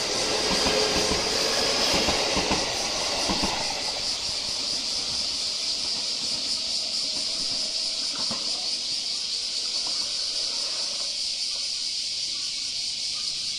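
JR West 223 series electric train pulling away, its wheels clacking over rail joints, the rail noise fading out about four seconds in. A steady high-pitched hiss runs on underneath.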